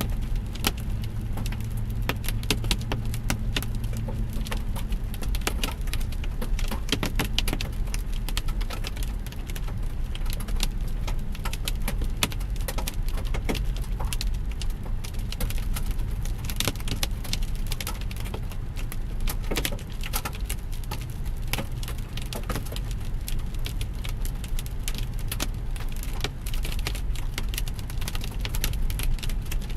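Hail pelting a car, a dense, continuous clatter of sharp hits over the low, steady rumble of the car on the road.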